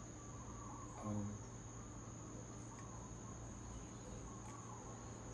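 Faint cricket trilling steadily in one high, unbroken tone, with a short hummed 'mm' about a second in.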